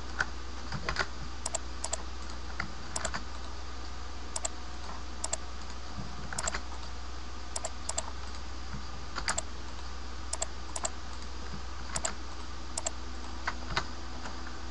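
Scattered, irregular clicks of a computer keyboard and mouse as shortcuts and selections are made, over a steady low hum.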